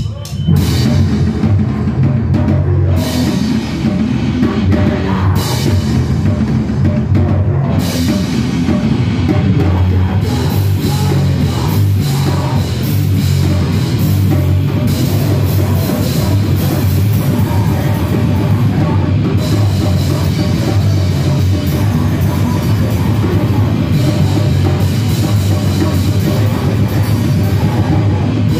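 A live band playing loud, heavy, distorted music on drum kit and electric guitar or bass.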